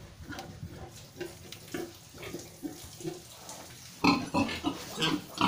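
A sow in labour grunting softly, in short grunts about twice a second; about four seconds in, louder and busier pig sounds set in.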